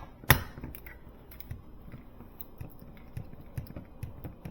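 A sharp plastic click a third of a second in as the Nest thermostat display is pressed onto its wall base, followed by a run of faint light clicks and taps as it is handled into place.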